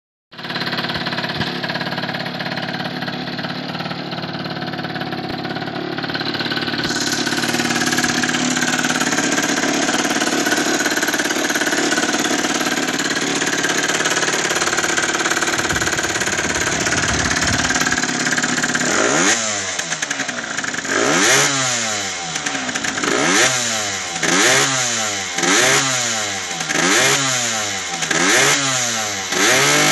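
Stock 50cc two-stroke single-cylinder engine of a Yamaha DT / Malaguti XSM motorcycle, not yet fully warmed up, idling steadily on its stock exhaust. About two-thirds of the way in it starts being revved in quick throttle blips, about once a second, each rising and falling in pitch.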